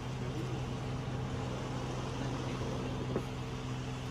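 Steady low machine hum over a faint hiss, with one faint click a little after three seconds in.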